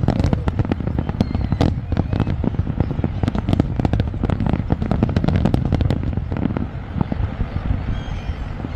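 Large fireworks display: a dense, continuous barrage of bangs and crackling bursts over a deep rumble, easing slightly in the last couple of seconds.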